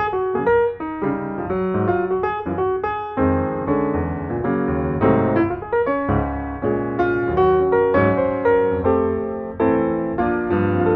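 Background piano music: a steady run of struck notes and chords at a moderate pace.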